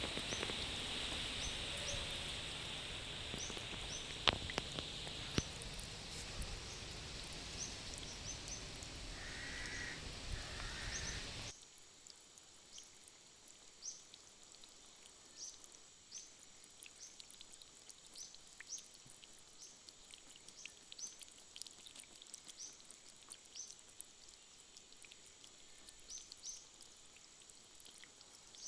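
Steady rain hiss, with a high short chirp repeating about once a second. About eleven seconds in the rain sound cuts off abruptly, leaving the chirps over a quiet background.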